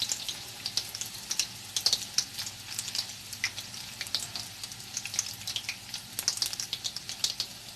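Battered chicken pieces sizzling and crackling as they fry in very hot oil in a pan, a steady hiss with frequent small pops.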